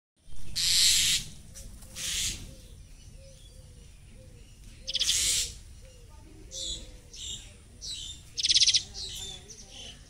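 Young cuckoo giving harsh, hissing calls: three longer ones in the first half, then a quicker run of shorter, rasping ones.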